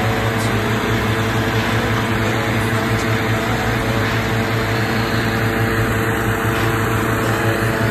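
Hot-air balloon's propane burner firing a long, steady blast into the envelope during ground inflation, with a steady low engine-like hum underneath.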